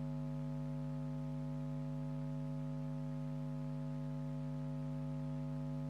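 Steady electrical hum of a space heater's transformer vibrating on alternating current: one unchanging low hum with several overtones, starting abruptly. It is the normal, harmless hum of power conversion, not a sign of a fault.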